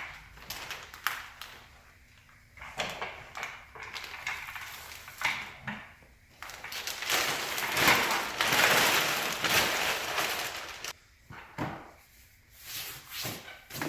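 Office chair parts being handled during assembly: scattered knocks and scrapes, then a few seconds of loud rustling from about halfway in.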